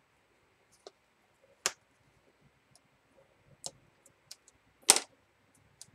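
Scattered light clicks and taps of paper and a slim hand tool against a craft mat as a paper strip is folded over and pressed down, about six in all, the sharpest about two seconds in and near the end.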